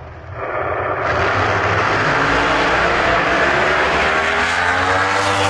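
Drag race car engine at full throttle making a pass. The sound builds over the first second, then holds loud with its pitch climbing slowly.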